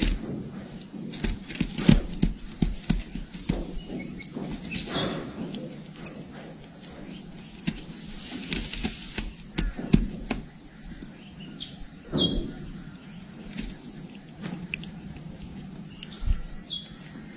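A bird gives three short, high chirps several seconds apart over steady background noise, with scattered small clicks and knocks.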